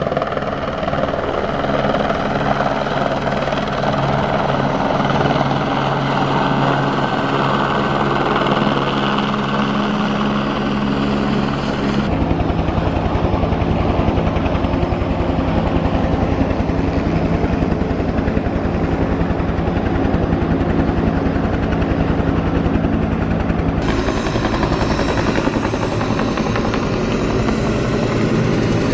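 Turbine helicopters flying past overhead: a steady rotor beat with engine hum and turbine whine. The sound is in three clips, joined by abrupt cuts about 12 and 24 seconds in. The first clip is an Airbus AS350-type light helicopter, and the last a two-bladed Bell UH-1 (Huey)-type.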